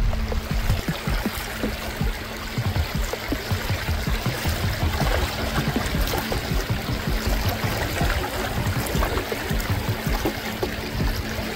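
A shallow, stony stream running and trickling over rocks, mixed with background music that holds a steady low note.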